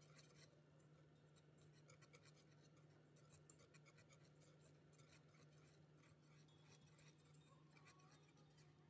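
Faint wire whisk scraping and clicking against the sides and bottom of a nonstick saucepan as it beats a thick mixture, over a steady low hum.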